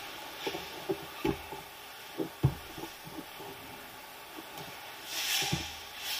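Brazilian jiu-jitsu grappling on mats: an irregular run of dull thumps and scuffs from feet, hands and bodies hitting the mat and gripping the gis, the loudest about two and a half seconds in. A short hissing rush comes about five seconds in.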